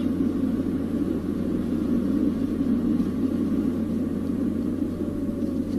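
Steady rumble of a car being driven, with engine and road noise heard from inside the cabin.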